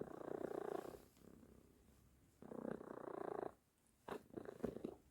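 A domestic cat snoring in its sleep: three rattling, vibrating breaths of about a second each, with quieter pauses between them.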